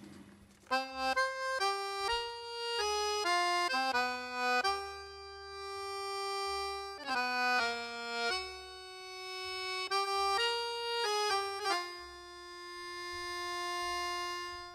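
Background music: a slow melody of held notes over a soft low accompaniment, starting about a second in.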